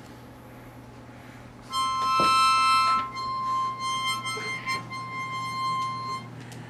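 Harmonica playing a held chord of several notes at once, starting abruptly about two seconds in, loudest for the first second, then going on more softly and unevenly until it stops shortly before the end.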